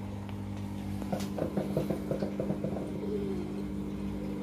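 Steady low electrical hum from running aquarium equipment, with a quick run of about a dozen short soft pulses from about one to three seconds in.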